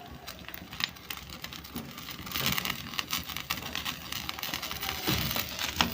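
Open fire crackling, with scattered sharp pops and a brief hiss near the middle.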